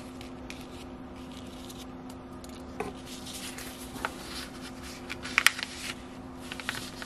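Paper being handled and folded on a cutting mat: soft rustling with a few short crisp crackles, the sharpest a quick pair a little past the middle. A steady low hum runs underneath.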